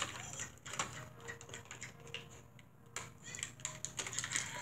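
Light, irregular clicking and tapping of small plastic Beyblade parts being handled and worked loose from their packaging, with a quieter lull about halfway through.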